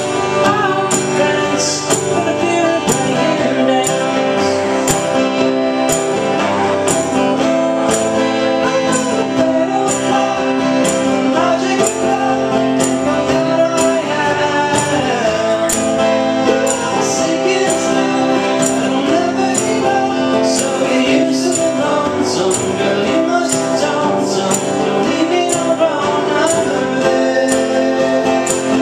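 Live acoustic band music: strummed acoustic guitar and male singing, with a jingling percussion beat about twice a second.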